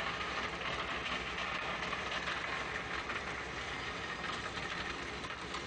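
Steady rattling din of a Putzmeister Telebelt 110 conveyor belt running, feeding gravel off its end into a drilling rig's funnel, with heavy machinery humming underneath.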